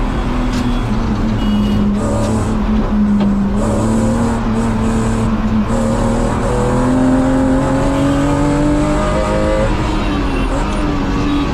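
Car engine accelerating hard, its pitch climbing in each gear and dropping back at each gear change, several times.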